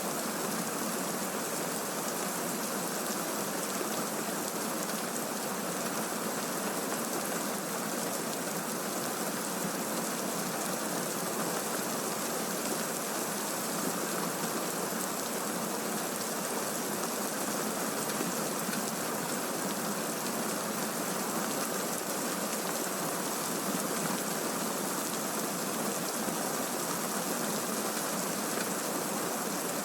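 Steady, even rainfall hiss with no thunder or other events in this stretch.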